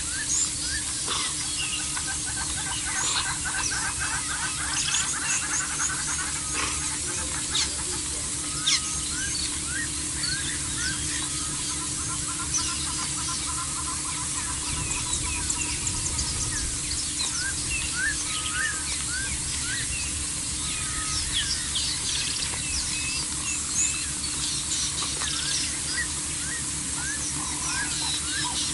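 Many small birds chirping and calling over one another, a dense scatter of short high notes and quick downward whistles, over a faint steady low hum.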